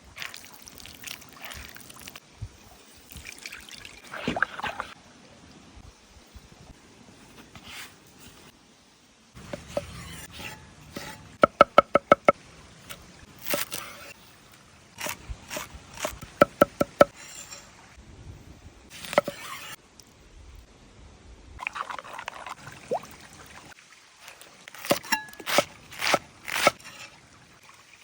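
Food-preparation sounds: a series of sharp knocks and taps, some in quick runs of evenly spaced strikes, with liquid pouring and trickling.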